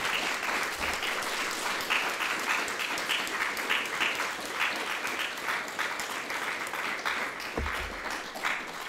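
Audience applauding steadily, with a brief low thump near the end.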